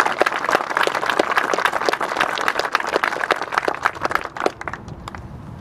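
Crowd applauding, with one pair of hands clapping close by standing out as sharp individual claps. The applause thins and dies away about four and a half seconds in.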